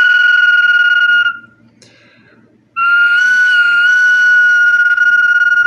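Whistling bottle (botella silbato) giving two long, steady high whistles. The first stops about a second and a half in. The second starts near the three-second mark and holds on, stepping up slightly in pitch partway through.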